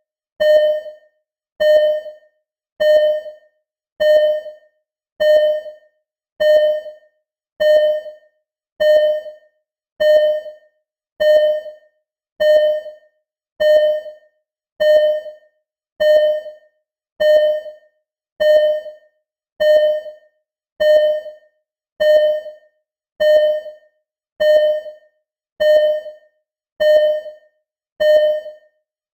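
Simulated ECG heart monitor beeping: a single short electronic tone repeating steadily about once every 1.2 seconds, each beep starting sharply and fading quickly.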